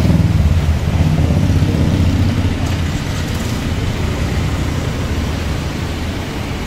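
A motor vehicle engine idling close by, a steady low hum that is strongest for the first three seconds and then eases off.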